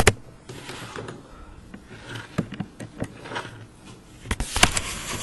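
Handling noise: scattered clicks and knocks with short bursts of rustling, thickest near the end, as of equipment or objects being handled.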